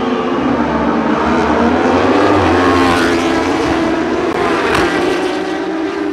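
A pack of racing superbikes accelerating hard up the straight and passing close by. Many engines run at high revs with overlapping pitches that rise and fall through the gear changes. The sound is loudest about two to three seconds in, and one bike passes very close near the end.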